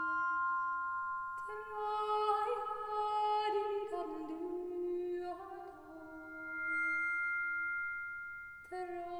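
Music: a singing voice carrying a slow melody that moves in steps, over long, steady ringing tones. The voice drops out briefly near the start and again for a couple of seconds before the end, leaving only the held tones.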